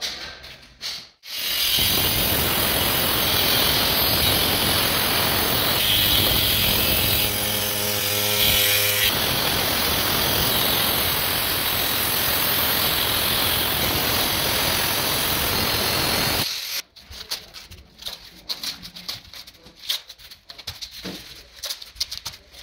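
Power tool running steadily for about fifteen seconds, then cutting off, followed by scattered light knocks and clatter.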